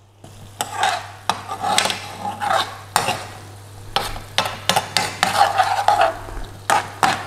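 A spoon stirring and scraping thick curry sauce and chicken pieces around a metal frying pan on the heat. The strokes are irregular, about one or two a second, with sharp knocks of the spoon against the pan, over a light sizzle of the sauce frying.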